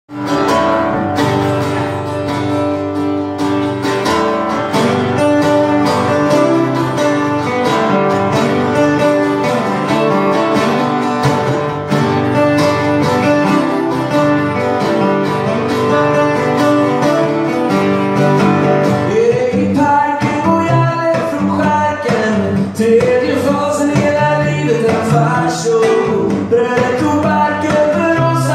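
Live acoustic folk song: acoustic guitars playing an instrumental intro with held melody notes over them, and a man starts singing about two-thirds of the way in.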